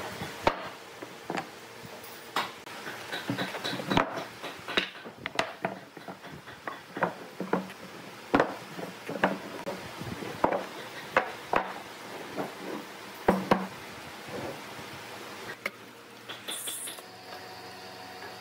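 Thick wooden blocks being set down on a workbench and knocked against one another as they are stacked: irregular wooden knocks and clunks, sometimes several in quick succession.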